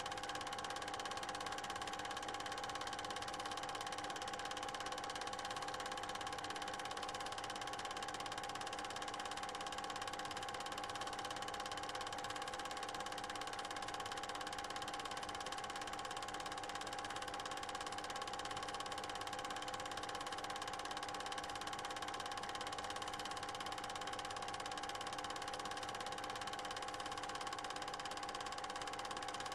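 Steady mechanical hum with a few constant tones over an even hiss, unchanging throughout.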